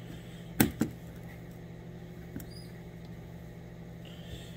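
Squirrel pieces being breaded in a bowl of seasoned flour: two sharp knocks from the bowl being handled about half a second in, then a small tick, over a steady low hum.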